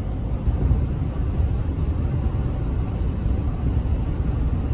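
Steady low road and engine rumble inside a car cabin at highway speed.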